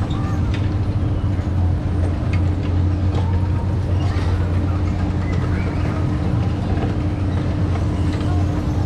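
A steady low mechanical hum with a constant tone, like a running engine or motor, with faint voices and scattered clicks under it.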